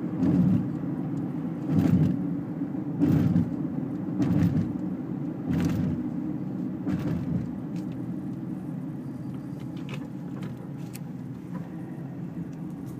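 Road noise of a moving car heard from inside the cabin: a steady low rumble of tyres and engine, with a run of louder thumps every second or so in the first half, growing quieter after about eight seconds.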